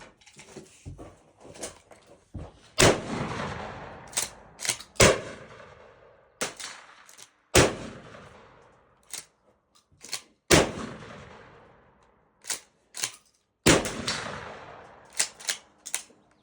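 Maverick 88 pump-action shotgun fired five times, a shot every two to three seconds, each blast echoing and fading over a second or two, with the clack of the pump being worked between shots. A mixed load of birdshot and buckshot shells is feeding and cycling without a jam.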